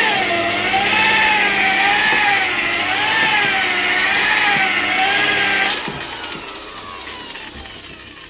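Electric paint polisher running on lacquered car bodywork, its motor pitch wavering up and down about once a second as it is pressed and worked across the panel. A little before six seconds in it is switched off and spins down with a falling whine.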